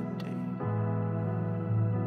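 Keyboard playing soft, sustained chords, moving to a new chord about half a second in.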